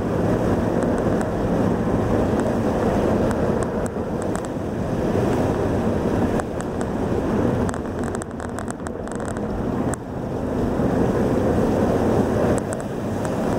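A car's engine running under way, with steady road and wind noise filling the cabin; a few faint clicks about eight to nine seconds in.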